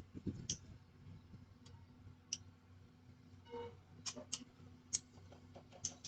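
Scattered sharp clicks and ticks from steel fixing work on reinforcing bar, about seven of them at irregular spacing, with a short pitched note a little past halfway.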